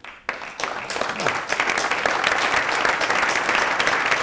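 Audience applauding. The clapping starts a moment in and swells to full, steady applause within about two seconds.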